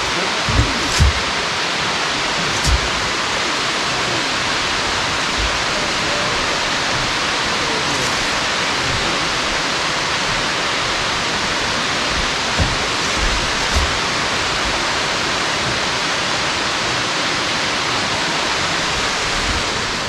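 Steady roar of falling water from a tall waterfall, an even rushing noise that does not change, with a few brief low thumps.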